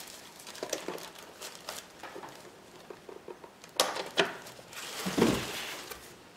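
White packing wrap rustling and crinkling as it is pulled back and lifted off a boxed portable power station. There are two sharp knocks about four seconds in, then a louder rush of rustling a second later.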